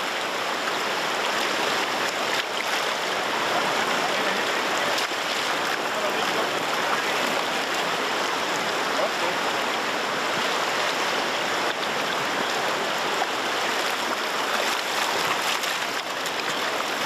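Fast river water rushing over a shallow stony bed in a steady, even rush.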